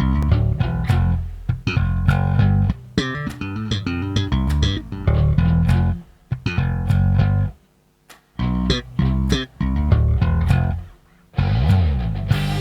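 Zeline J5 five-string jazz bass played solo: a run of short plucked notes with sharp attacks, broken by brief pauses a few times. Near the end comes a sliding note.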